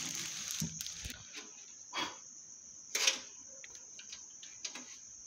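Crickets chirring steadily at a high pitch, with short knocks and rustles about two and three seconds in from hands working a graphics card into a desktop PC case.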